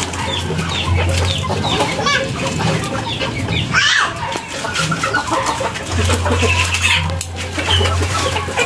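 Chickens clucking and calling, with many short, high calls and one louder squawk about four seconds in.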